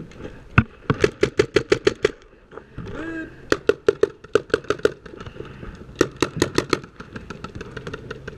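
Paintball marker firing in three rapid strings of about eight shots a second, with a few fainter shots near the end.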